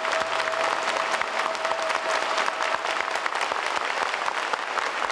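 Theatre audience applauding steadily after a stage performance. A held musical note runs underneath and stops about three seconds in.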